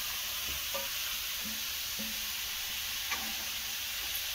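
Grated carrots sizzling in a little hot ghee in a metal kadhai: a steady hiss, with a few soft knocks and scrapes as the carrots are tipped in from a steel bowl and pushed around.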